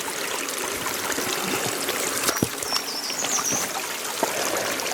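Water of a small irrigation canal trickling and babbling over stones, steady throughout. A bird chirps briefly about three seconds in.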